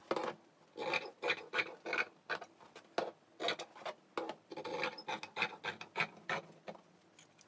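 Fabric shears cutting through cotton fabric, an irregular run of short rasping snips, about two to three a second, as the blades close through the cloth.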